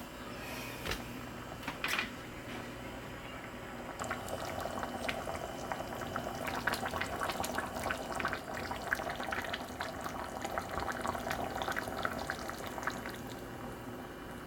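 Liquid bubbling at a boil in a pot, a dense run of small pops that starts about four seconds in and eases near the end.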